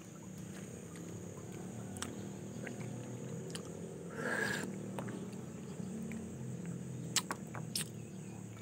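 Outdoor rural ambience with a steady low rumble, a short animal call about four seconds in, and a few sharp clicks near the end.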